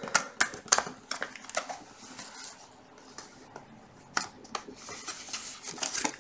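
Scattered sharp clicks of a computer keyboard and mouse: several in the first two seconds, a pair about four seconds in, and a few more near the end.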